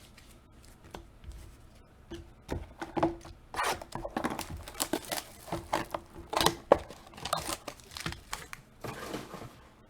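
Trading card pack wrapper being torn open and crinkled by hand: a quiet couple of seconds, then an irregular run of crackles and tearing.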